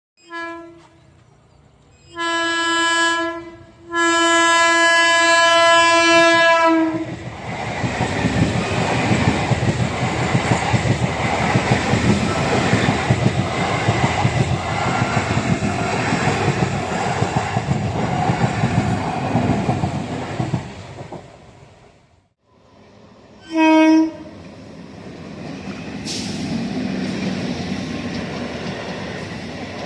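Brand-new Indian Railways EMU electric local train sounding its horn: a brief toot, then a blast of about a second and a longer one of about three seconds. It then runs past at speed with loud rumbling and rapid clatter of wheels over the rail joints that fades out about twenty seconds in. After a short gap a train horn gives one short blast, followed by a quieter steady rumble.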